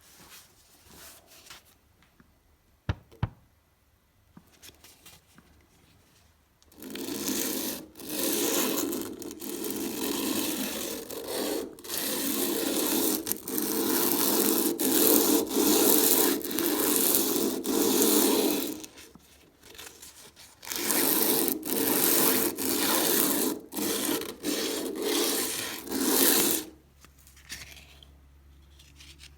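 Two sharp clicks about three seconds in. From about seven seconds, long runs of coarse abrasive rubbing and scraping on a rusty steel screwdriver bit, broken by short pauses, stop a few seconds before the end.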